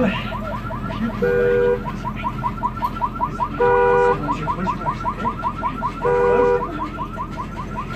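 Car alarm sounding: a rapid, even chirping warble, about five chirps a second, broken three times by a short honk about every two and a half seconds.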